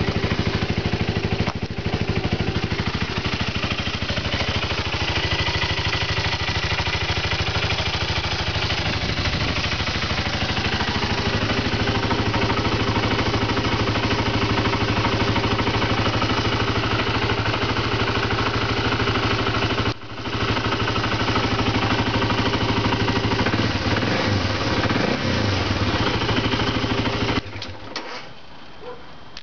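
Fuel-injected single-cylinder Rotax engine of a BMW F650GS Dakar idling steadily through a Sebring aftermarket exhaust. It cuts off suddenly near the end.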